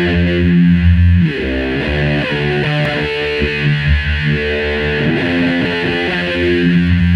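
Background music led by a distorted electric guitar, with sustained notes and chords changing about every second.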